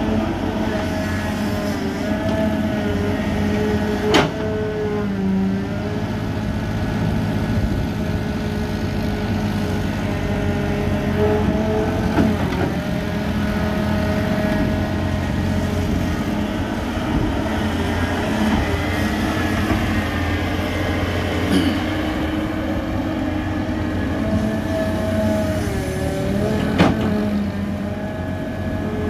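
Caterpillar hydraulic excavator's diesel engine running under working load, its tones rising and falling as the arm and bucket work the pond. Three sharp knocks stand out: about four seconds in, past the middle, and near the end.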